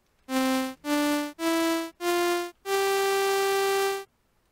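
Home-made software synthesizer playing a digital sawtooth wave, each note shaped by an amplitude envelope with a soft attack and release. Five notes rise step by step: four short ones about half a second each, then a longer held note that stops a little after four seconds in.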